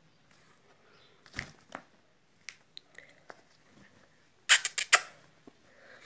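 Black francolin scuffling on a carpet without calling: scattered light taps and rustles, then a quick flurry of about five sharp wing flaps about four and a half seconds in, the loudest sound.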